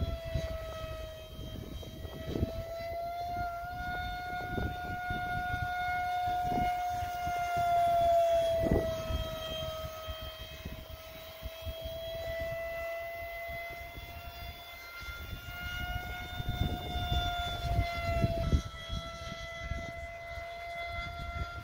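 ElectriFly F-16 Falcon model jet's electric ducted fan whining steadily in flight. The pitch wavers slightly, and the whine is loudest about eight seconds in. Gusts of wind rumble on the microphone.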